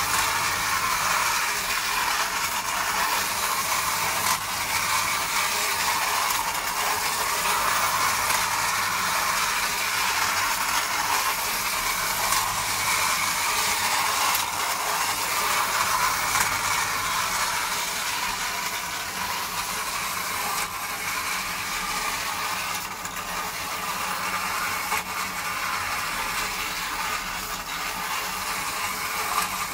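Hungarian-made tin toy car pushing small tin wagons along a tin track board: its mechanism keeps up a steady whirring, with the wheels rattling on the sheet metal.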